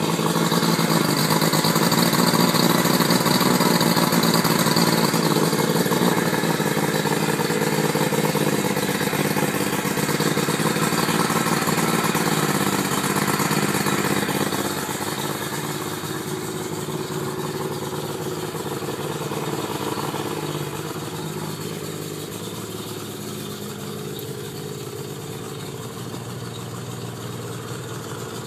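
Mercury 60 hp outboard motor running at idle just after a cold start, following a couple of days unused. It is steady throughout and turns a little quieter about halfway through.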